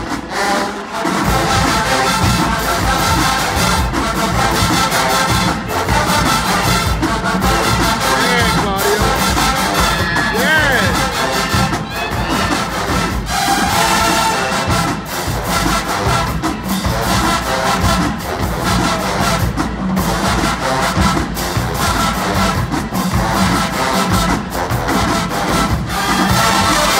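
Marching band playing: a full brass section of sousaphones, trombones and trumpets over bass drums and percussion.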